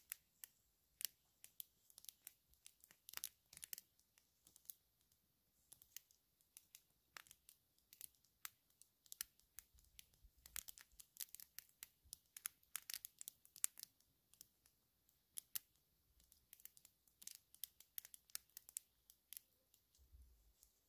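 Small campfire of twigs crackling: faint, irregular sharp snaps and pops, several a second.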